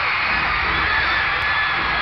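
Arena concert crowd screaming and cheering without a break, many high voices overlapping.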